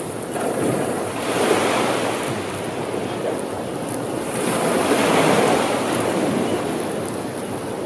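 Ocean waves breaking on the shore in a steady wash, swelling twice, with the larger surge about five seconds in.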